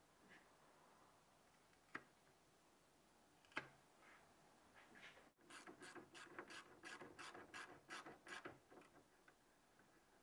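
Faint sounds of hose-clamp work: two sharp snaps as snips cut off the excess tail of the clamp band, then a ratchet wrench clicking in a quick run of about a dozen strokes, roughly four a second, as the clamp on the radiator hose is tightened.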